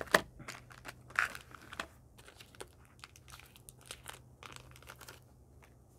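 Chocolate bar wrapper crinkling as it is handled: a run of sharp, irregular crackles, loudest just after the start, that stops about five seconds in.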